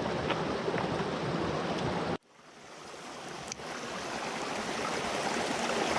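Rushing mountain stream, a steady wash of water noise. It cuts out abruptly a little over two seconds in and then fades back up gradually over the next few seconds.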